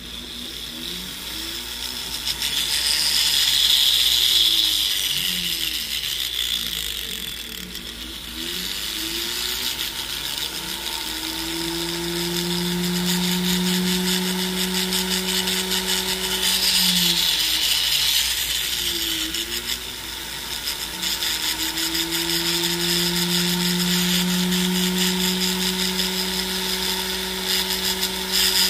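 Jeweler's rotary tool grinding and filing excess solder off a gold chain link. The motor's pitch rises and falls as the speed changes, then holds steady for long stretches, with a harsher grinding hiss a few seconds in and again about halfway through.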